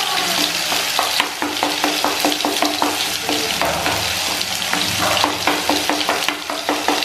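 A metal spoon stirring spice paste and water in a small steel bowl, scraping and clinking against the sides in quick, irregular ticks, over a steady sizzle from the pan on the stove.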